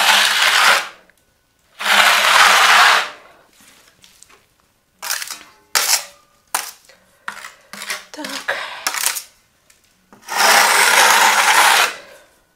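A steel plastering spatula scraping across fresh gypsum plaster on a wall in three long strokes: at the start, about two seconds in, and from about ten seconds in. Between them come short scrapes and clicks of metal against metal, the spatula being worked against the trowel.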